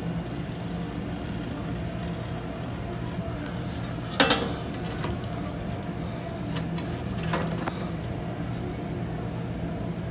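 A utility knife cutting vinyl wallcovering along a steel taping knife used as a straightedge: a sharp metallic click about four seconds in, then a few lighter ticks. A steady low hum runs underneath.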